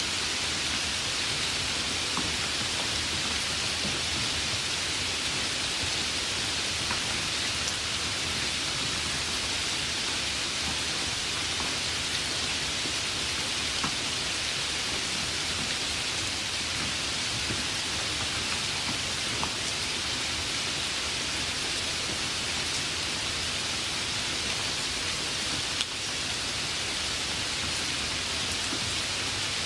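Steady spring rain falling: an even hiss with scattered drop ticks, easing very slightly near the end.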